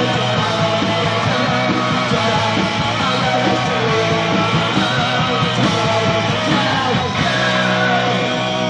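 Punk rock band playing live: distorted electric guitars, bass and drums at a steady, loud level.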